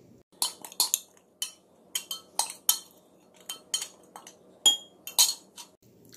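A silicone spatula and a glass measuring jug clinking and scraping as oil-and-herb marinade is scraped out of the jug into a glass bowl of raw shrimp: a dozen or so irregular clinks of glass, the loudest near the end ringing briefly.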